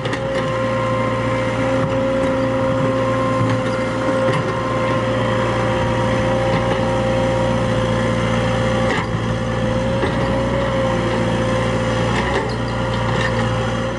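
Excavator running steadily at work, a constant engine drone with a steady whine over it and a few scattered knocks.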